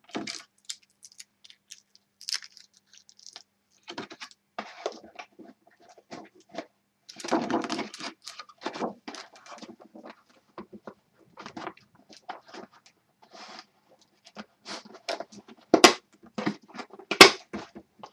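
Headphone packaging being handled and opened: irregular scrapes, rustles and taps of cardboard and plastic, with two sharp clicks near the end.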